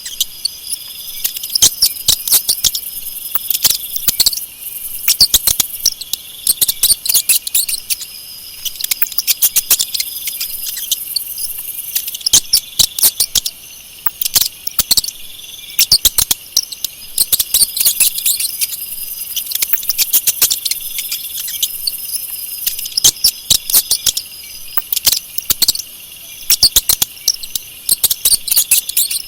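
Mice squeaking and chittering: irregular clusters of sharp, high clicks and chirps over a continuous high-pitched hiss.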